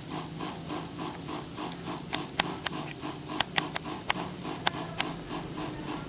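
A small 12 V DC diaphragm water pump running, a low hum with a rapid, even pulsing as it pushes water out through the misting nozzles. A handful of sharp clicks come in the middle.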